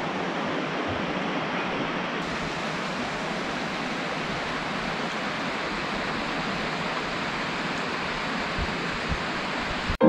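Steady rush of flowing water.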